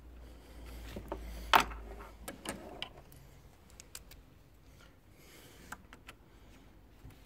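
Scattered clicks and knocks of hand tools and bolts being handled while the air-conditioning compressor is bolted back in; the sharpest knock is about one and a half seconds in, with a low rumble of handling over the first couple of seconds.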